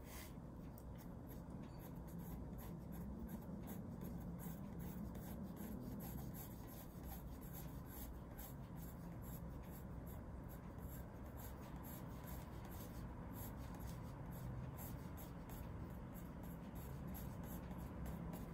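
Graphite pencil scratching across paper in many short, quick sketching strokes.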